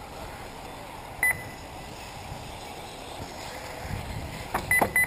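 Short electronic beeps, one about a second in and two in quick succession near the end, over steady background noise; a few sharp knocks come with the last beeps.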